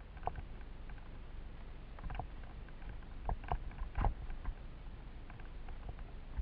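Mountain bike descending a dry dirt trail: a steady low rumble from the tyres and the ride, broken by sharp rattling knocks as the bike jolts over bumps. The loudest knock comes about four seconds in.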